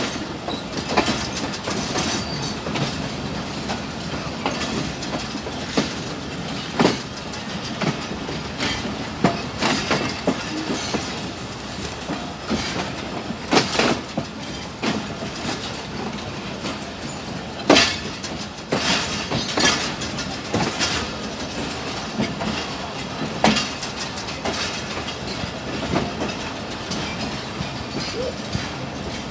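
Passenger train coaches rolling past, wheels clacking and knocking irregularly over the rail joints.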